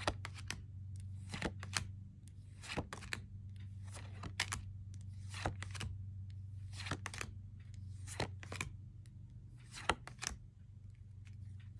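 Tarot cards being flipped one at a time, each card sliding off the deck with a short crisp swish, often two quick ones together, about every second or so. A steady low hum lies underneath.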